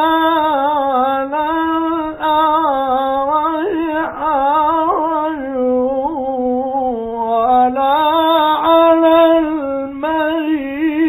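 A male Quran reciter's voice in a long, ornamented melodic line of tajweed recitation. The pitch winds up and down, with short breaths between phrases.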